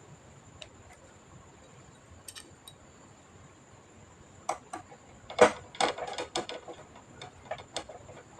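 Scattered sharp clicks and light knocks of small plastic and metal computer parts being handled, with a quick run of them in the second half. A faint steady high whine sits underneath.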